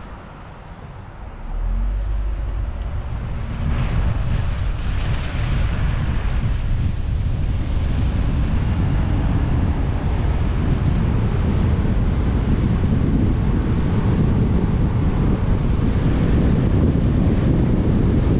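Car driving, with steady road and wind noise on the camera microphone. The noise is lower for the first second or so, then grows louder about two seconds in and again about four seconds in.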